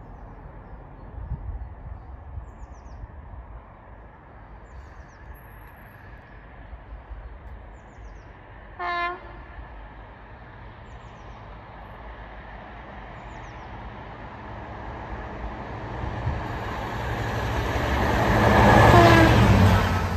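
Class 55 Deltic diesel locomotive, twin Napier Deltic engines, approaching at speed. It gives one short horn blast about nine seconds in. Its engine and wheel noise then builds to a peak as it passes near the end, the note dropping in pitch as it goes by.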